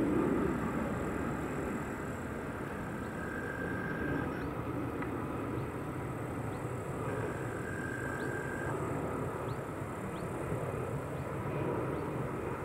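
Airbus A320-family jet airliner flying over on landing approach: a steady distant engine rumble with a hiss, slightly louder at the start.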